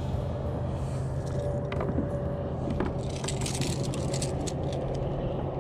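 A hooked spotted seatrout splashing and thrashing at the water's surface as it is lifted beside a kayak, heard as a scatter of short splashes and knocks over a steady low hum.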